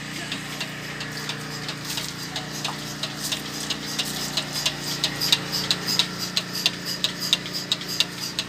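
Bucket milking machine running while milking a cow: a steady motor hum with the pulsator clicking evenly, about three times a second, the clicks louder in the second half.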